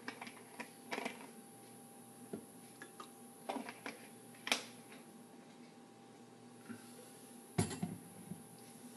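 Faint, scattered taps and clicks of glassware and a plastic bottle being handled, with a sharper click about four and a half seconds in and a knock with a low thump about seven and a half seconds in.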